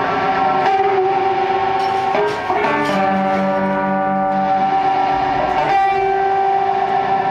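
Drone music from electric guitar and keyboard played through effects pedals: layered notes held steadily, shifting to a new set of pitches about two and a half seconds in. For a second or two after that, a low note pulses about four times a second.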